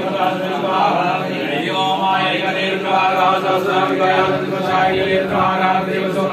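Several voices chanting Hindu mantras together in an unbroken recitation during a puja.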